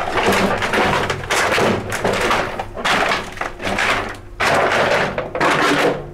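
Footsteps crunching over a rubbish-strewn floor, one long scrunch roughly every second at walking pace.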